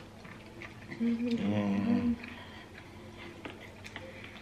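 A person humming a closed-mouth "mmm" with a mouthful of food, one hum of a bit over a second starting about a second in and dipping slightly in pitch, with faint mouth clicks of chewing around it.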